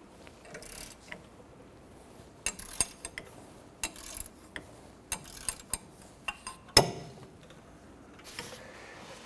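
A ratchet and 13 mm socket working on the rear brake caliper bracket bolts: irregular metallic clicks and clinks begin about two and a half seconds in, with one sharp metal knock, the loudest sound, about two-thirds of the way through.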